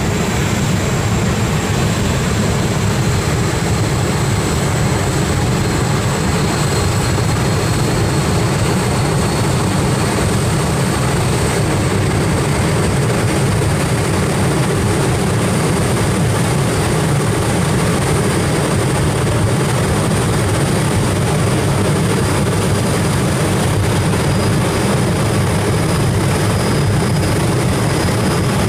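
Rolls-Royce Derwent 8 centrifugal-flow turbojet running at power: a loud, steady jet roar with a high whine that climbs slowly in pitch.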